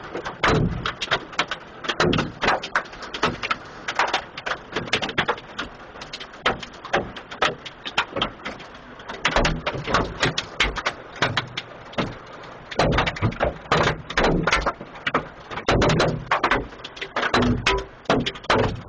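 Large hailstones pelting hard surfaces in a dense, irregular clatter of hits, with heavier flurries around two, four to five, nine to eleven, thirteen to fourteen and sixteen to seventeen seconds in.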